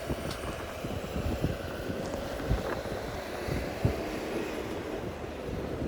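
Blizzard wind blowing with a steady low rumble, and a couple of faint knocks near the middle.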